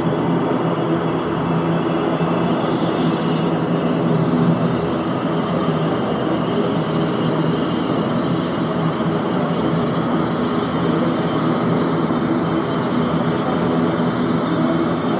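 ATR 42 twin-turboprop airliner taxiing, both engines and propellers running at taxi power: a steady, loud propeller drone with a thin high whine on top.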